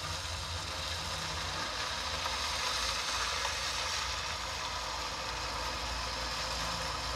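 Vehicle engine idling steadily, a continuous low rumble with an even hiss over it, heard from inside the cab.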